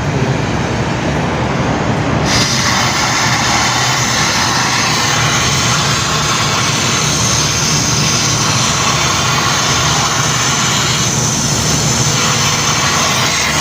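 Steady mechanical drone with a low hum underneath, turning hissier from about two seconds in.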